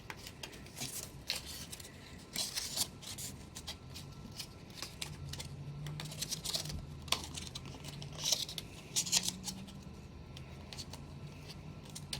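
Paper rustling and crinkling in short, irregular scratches as a square of origami paper is folded and creased by hand.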